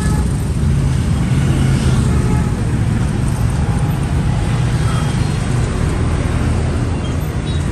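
Street traffic: a steady rumble of passing vehicles.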